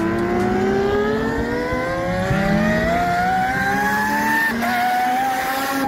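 Mazda RX-7 drift car's engine revving up in one long, unbroken climb in pitch that keeps going well past where it seems it should stop. About four and a half seconds in, the revs drop back slightly and then hold high.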